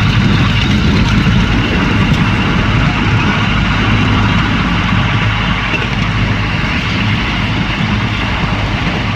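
Steady rumble and road or track noise of a moving vehicle, running evenly with no breaks.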